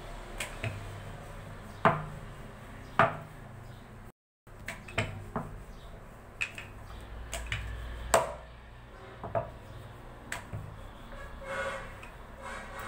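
Rolling pin knocking and rolling against a round rolling board (chakla) as dough is rolled out flat: irregular sharp clicks and knocks, spaced a second or so apart, over a low steady hum.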